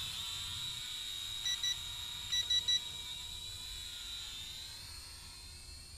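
Eachine E58 quadcopter's coreless motors whining steadily in flight, fading over the last couple of seconds as it flies off. About one and a half seconds in, the transmitter beeps twice, then three times a second later, as the speed setting is stepped up.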